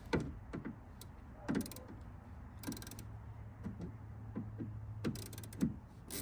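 Hand screwdriver tightening the screws that hold a speaker in a car door, with irregular sharp clicks and scrapes of the tool over a low steady hum.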